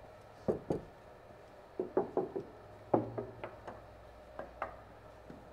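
A series of about a dozen short, light knocks or taps at uneven spacing, several coming in quick pairs.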